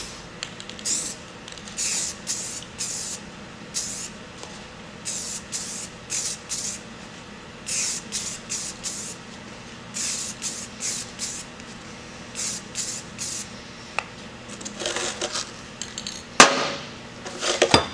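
Aerosol spray can of semi-gloss black enamel hissing in a string of short sprays, each under a second, with brief gaps between them. A sharp knock near the end is the loudest sound.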